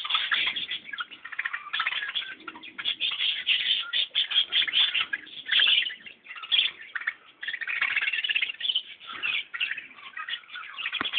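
Many birds chirping and chattering at once, a dense, busy stream of quick high calls with brief lulls.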